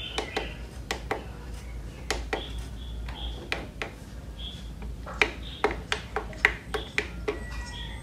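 Plastic front-panel buttons of a DVD player clicking as they are pressed, about twenty sharp clicks in irregular runs, thickest in the second half.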